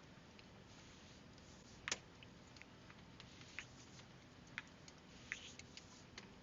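Faint, irregular light clicks and taps over a quiet background, with one sharper click about two seconds in.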